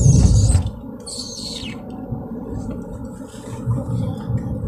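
Car driving slowly on a narrow rural road, heard from inside the cabin: a low road and tyre rumble, stronger in the first half second and then quieter. Two high, falling chirps come through, one at the very start and one about a second in.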